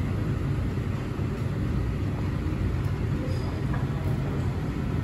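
Steady low rumble and hiss of restaurant background noise, the kind made by ventilation and exhaust fans over tabletop grills.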